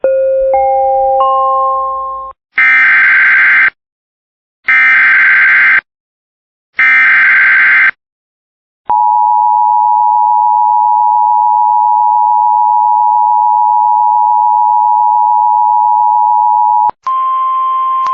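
Emergency Alert System tones: a rising three-note chime, then three one-second bursts of SAME digital header data, then the two-tone EAS attention signal held steady for about eight seconds. Near the end, a single steady tone takes over just before the voice message.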